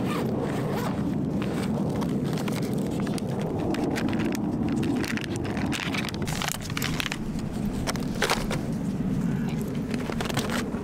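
Rustling and crackling of a small pouch being opened and handled by hand, many short irregular crinkles, over a steady low rumble.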